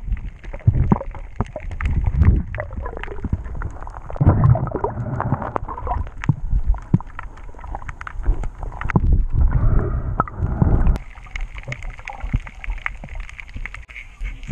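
Underwater camera sound: water sloshing and gurgling against the housing in irregular surges, with scattered clicks and knocks, as a diver swims with a pole spear over a reef. About eleven seconds in, the sloshing gives way to a steadier hiss.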